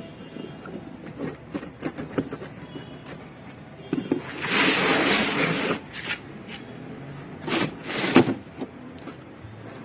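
Cardboard shipping box being cut and opened by hand: scattered clicks and rustles of handled packaging, with a longer rasping tear of about a second and a half some four seconds in and shorter ones near eight seconds.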